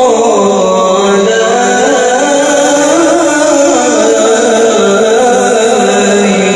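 Man's voice singing an Arabic nasheed in long, ornamented held notes that waver in pitch, amplified through a microphone and PA loudspeaker.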